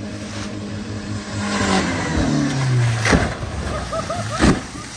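Ford Ranger pickup's engine running hard, its pitch rising and then falling away about two seconds in, followed by two heavy crashes as the truck hits the ground, about three and four and a half seconds in.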